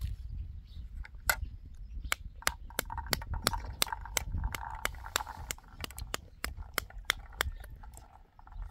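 A quick, uneven run of sharp clicks, about three a second: a knife tapping the back of a pomegranate piece held in the palm, knocking the seeds out onto a plate.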